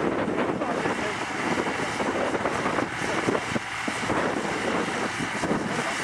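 John Deere 2140 tractor's diesel engine running steadily as it pulls a four-furrow plough through the soil, with wind buffeting the microphone.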